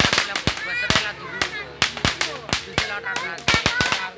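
A firecracker belt going off in a run of sharp, irregular bangs, about five a second, with voices calling over it.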